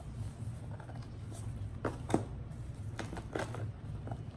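Hardcover and paperback books being handled and stacked on a cloth-covered table: a few soft knocks and rustles, the loudest about two seconds in, over a steady low background hum.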